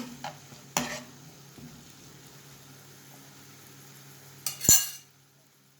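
Thinly sliced onion sizzling gently in a little oil in a frying pan over low heat, softening. A utensil clicks against the pan twice near the start, and there is one loud sharp knock near the end.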